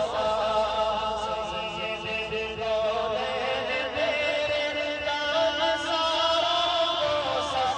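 A man's voice singing a devotional Urdu salam (naat) solo through a microphone and PA, in long drawn-out notes that waver and bend in pitch.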